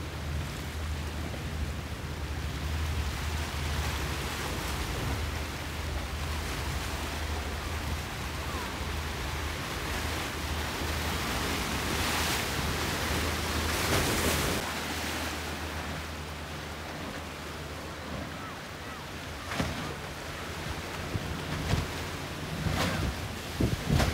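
Choppy sea and breaking waves with wind buffeting the microphone, over a steady low boat-engine drone that fades out a little past halfway. A few brief louder wind buffets come near the end.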